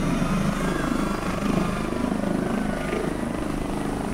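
Helicopter running on the ground with its rotor turning, a steady rapid rotor chop over engine noise.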